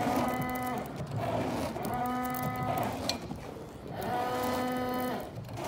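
Windshield wiper blades sweeping across wet glass, each sweep giving a pitched, squealing hum that lasts about a second. This happens three times, about two seconds apart.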